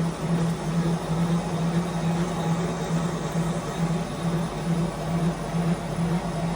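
Line boring machine cutting the main bearing bores of a jet-ski engine crankcase: a steady mechanical hum with a low tone that pulses about twice a second.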